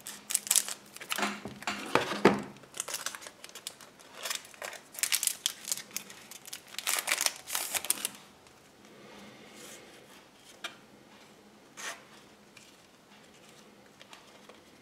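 Scissors cutting the top off a foil trading-card booster pack, then the foil wrapper crinkling as it is handled. The rustling dies down about eight seconds in, leaving a few soft ticks.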